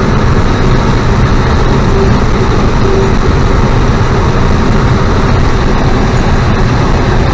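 Combine harvester running steadily while harvesting soybeans: a constant, loud mechanical noise.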